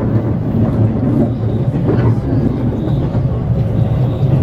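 Running noise of a 415 series electric multiple unit, heard from inside its driving cab while the train cruises: a steady low rumble of wheels on rails.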